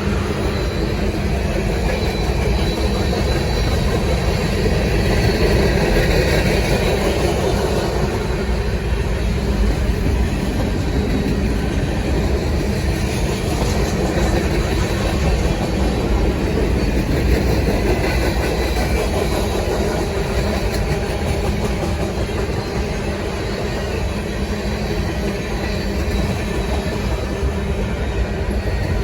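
Freight train's cars rolling steadily past, a continuous rumble of steel wheels on the rails.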